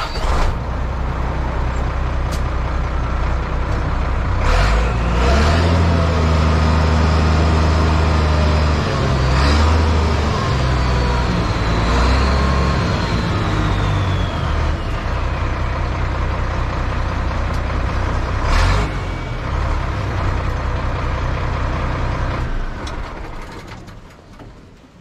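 International dump truck's diesel engine running, revved up about four seconds in to drive the hydraulic hoist as the dump body raises on the freshly rebuilt hoist cylinder, with a thin whine that slowly falls in pitch while it lifts. Brief air hisses come three times, and the engine dies away near the end.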